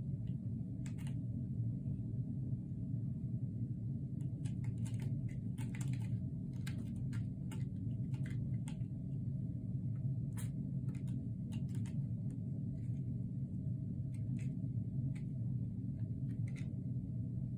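Kitten's claws scratching and catching on a sisal-rope scratching post: scattered short scratches and clicks, thickest in the middle, over a steady low hum.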